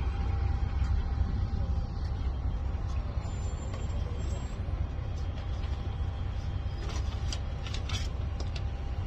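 Ride noise on the open top deck of a moving tour bus: a steady low rumble of engine and road, with a few short rattles or clicks near the end.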